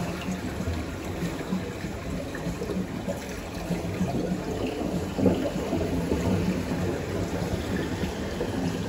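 Pool water sloshing and trickling as a swimmer moves through an infinity pool, over a steady low rumble.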